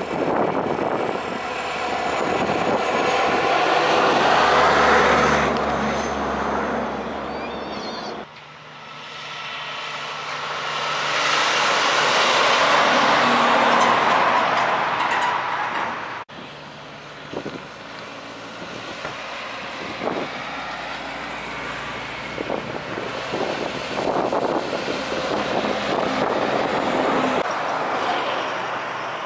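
Heavy semi-trailer trucks driving past one after another, engine and tyre noise swelling as each one passes. Two of the passes peak about 5 and 13 seconds in and end abruptly, followed by a steadier, quieter stretch of approaching truck noise.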